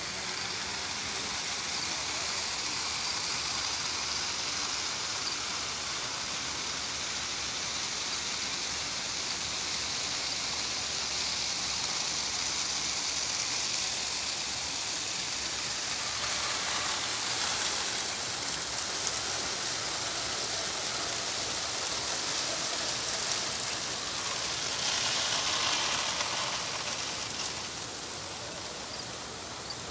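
Lawn sprinklers spraying water over grass, a steady hiss of falling spray like rain. It swells louder around halfway through and again near the end.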